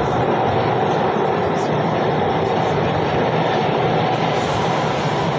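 Bangalore metro train running, heard from inside the carriage: a steady, even rumble and rush of the moving train.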